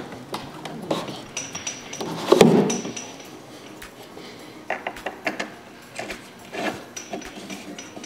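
Scattered clicks, knocks and rubbing from hands handling and fitting an RC jet's tail boom onto its fuselage, with one louder knock and scrape about two and a half seconds in.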